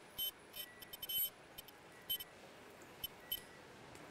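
Surgical gown sewing machine working in short, irregular bursts of faint high-pitched clicking and chirping as fabric is fed under its wheel.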